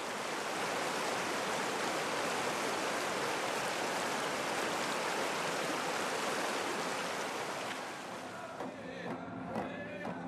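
River water rushing over rocks in rapids, a steady rush. It fades near the end as the voices of a gathered crowd come in.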